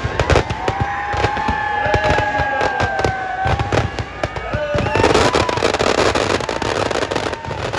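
Firecrackers packed inside burning Dussehra effigies going off in rapid bangs and crackles. About five seconds in they build into a dense, continuous crackle as a second effigy catches fire.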